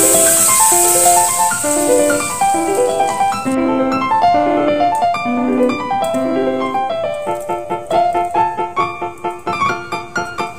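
Background piano music: a brisk melody of short, separate notes.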